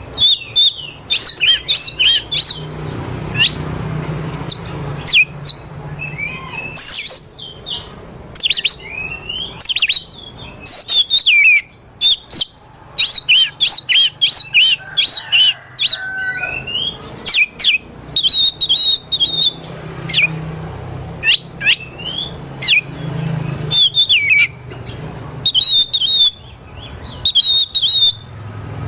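Oriental magpie-robin (kacer) singing a fast, varied run of chirps, trills and sliding whistles in quick bursts with short pauses, over a low background hum.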